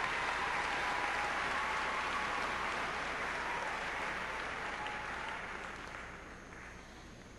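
Arena audience applauding the introduced skaters, the clapping dying away over the last couple of seconds.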